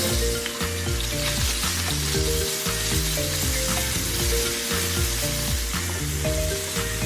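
Chicken sizzling in a hot pan as it is dry stir-fried, with steady frying hiss throughout, over background music.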